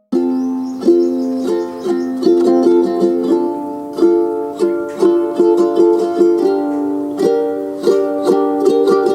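Background music: a bright track of quick plucked-string notes that cuts in abruptly at the start.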